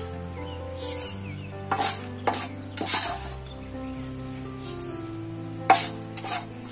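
Arabica coffee beans being dry-roasted in a pan, stirred with several scraping strokes of a spatula, with a light sizzling rustle in between. Background music with low held notes plays underneath.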